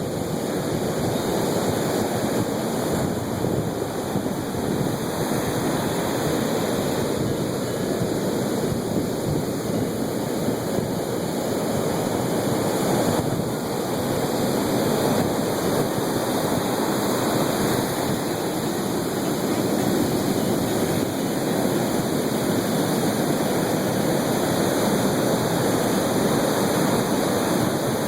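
Steady rush of ocean surf washing onto the shore, with no separate breaks standing out.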